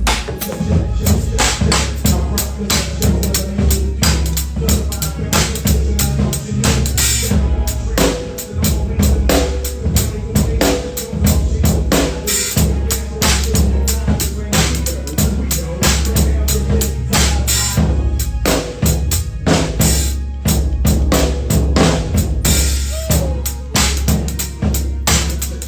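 A small band playing a groove: a drum kit with busy kick, snare and rim hits over a bass and keyboard.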